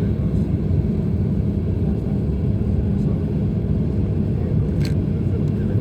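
Steady low rumble of a Boeing 737-800's engines and airframe heard inside the passenger cabin, with one short click about five seconds in.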